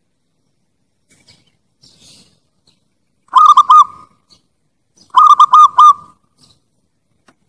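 Zebra dove of the Bangkok type cooing: two loud phrases of quick rolling notes, three notes about three seconds in and four notes about five seconds in.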